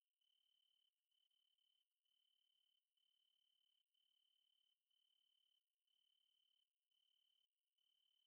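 Very faint cricket chirping: a steady high trill repeated in runs just under a second long, about once a second, with short breaks between them.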